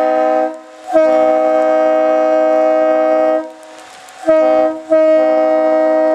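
Leslie RS-3LR three-chime locomotive air horn, fed from an air compressor, sounding its steady chord in separate blasts: the tail of one blast, a long blast of about two and a half seconds, a short toot, then another long blast that runs on. It is very loud.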